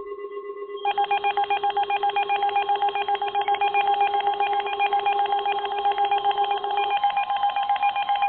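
Electronic alert-style tones: a steady low tone under a higher one. About a second in, a loud, rapidly pulsing beep joins them, at roughly six pulses a second. The low tone drops out near the end.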